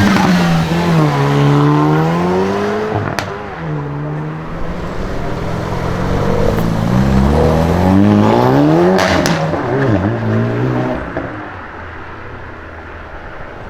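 Hyundai i30 N's turbocharged four-cylinder engine pulling hard through the gears, its pitch climbing and then dropping sharply at each upshift, with a sharp exhaust crack at the shifts about three and nine seconds in. The engine note fades near the end.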